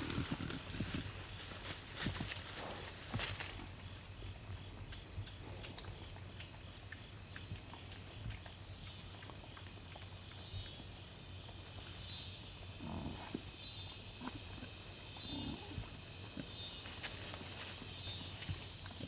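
Steady high-pitched drone of an insect chorus, with faint grunts and rustling from feral hogs feeding below, a few of them around two-thirds of the way through.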